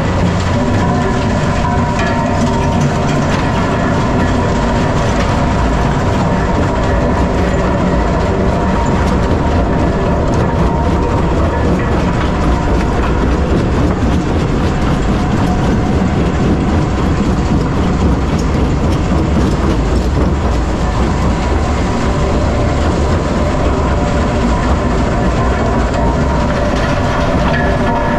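Metso 130 jaw crusher crushing blasted limestone: a loud, steady rumble and rattle of rock being broken between the jaws.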